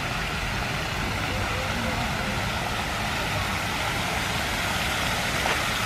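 Steady wind rumble buffeting the microphone, with faint distant voices in the background.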